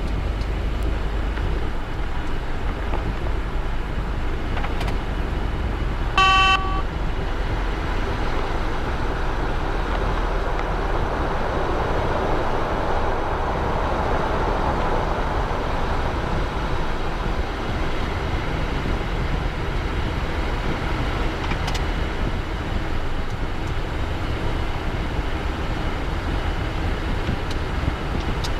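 Cessna Citation Bravo cockpit noise during the landing rollout: a steady rush of its twin turbofan engines and airflow, with a low rumble that fades about ten seconds in as the jet slows. A short electronic beep sounds once, about six seconds in.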